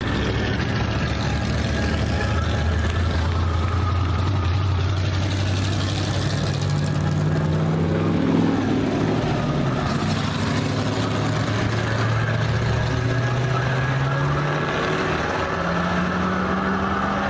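Dirt-track stock car engines running hard around the oval, their pitch rising twice as they accelerate off the turns. The sound is loudest as one car passes close about eight seconds in.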